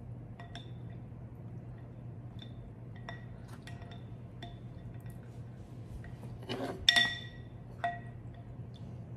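Chopsticks clinking and scraping against a glass bowl while chasing slippery rice cakes, each light tap ringing briefly. About seven seconds in comes a louder clatter as a spoon goes into the bowl, with one more clink just after, over a low steady hum.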